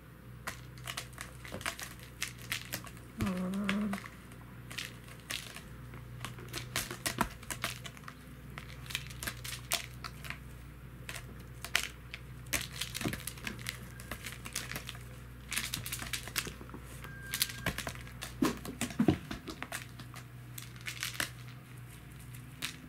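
A cat's claws scratching and catching on a sisal-rope scratching post and batting a hanging toy mouse, a long uneven run of crinkly scratches and sharp clicks. A brief low call about three seconds in.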